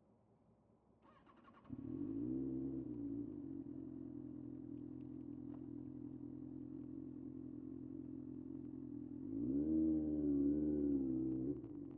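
Kawasaki ZX-6R's 636 cc inline-four being started: a short whirr of the starter about a second in, then the engine catches and settles into a steady idle. Near the end the throttle is blipped once, the pitch rising and falling before it drops back to idle.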